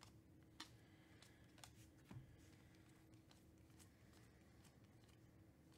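Faint, soft clicks and slides of glossy Panini Mosaic trading cards being flipped through by hand, a card every second or so, against near silence.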